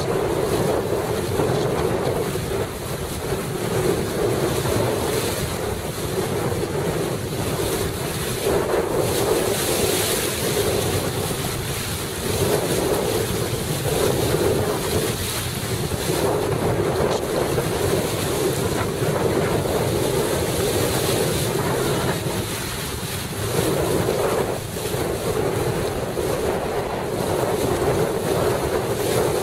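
Wind buffeting the microphone over the rush and splash of water along a Laser dinghy's hull under sail, swelling and easing every second or two.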